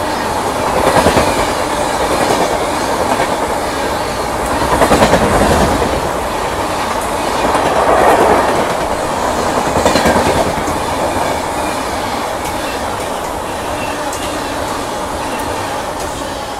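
Kerala Sampark Kranti Express passenger train running through the platform at speed close by: a continuous rush of coaches and wheels on the rails, swelling several times in the first ten seconds and easing off toward the end.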